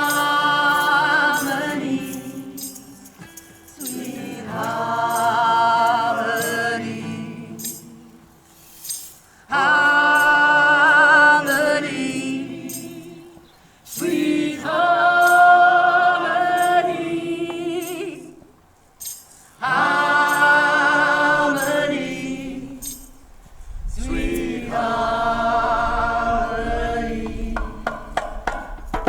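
Music: long sung phrases with a wavering pitch, about every five seconds, over light percussion ticks.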